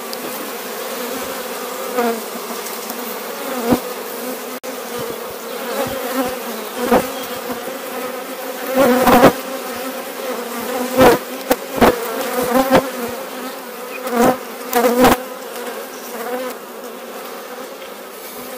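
Honeybee colony buzzing steadily over an opened hive, from bees the keeper calls protective but not angry. About a dozen irregular knocks and bumps from the wooden hive frames being handled break through the hum, the loudest around nine and eleven seconds in.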